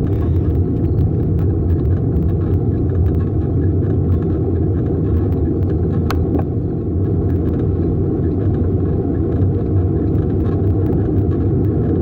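Steady low rumble of a bicycle riding on an asphalt trail: wind buffeting the handlebar-mounted microphone along with tyre noise. One brief sharp click about six seconds in.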